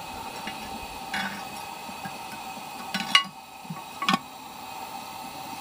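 Metal lid lifter hooking and lifting the lid of a cast-iron Dutch oven: three sharp metal clinks, the loudest about three seconds in.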